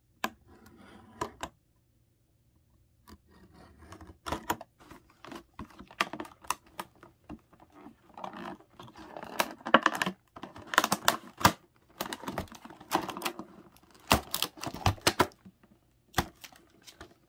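Cardboard-and-plastic doll box being opened by hand: a run of clicks, crinkles and scrapes as the packaging is handled and its tape is cut, with a short quiet pause about two seconds in.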